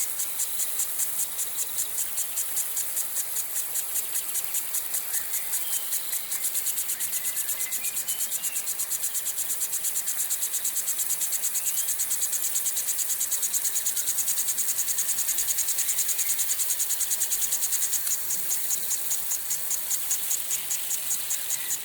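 Lawn sprinkler spraying water in a fast, even pulsing hiss.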